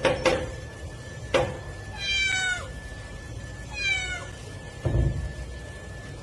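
Domestic cat meowing twice, each call falling in pitch. A metallic clank of the door's sliding bolt comes about a second in, and a low thump near the end as the cat drops to the floor.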